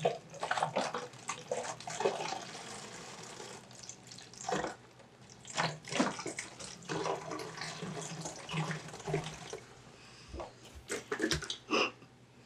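Water pouring from a plastic gallon jug into a plastic bottle in uneven spurts with short pauses; the pour stops near the end.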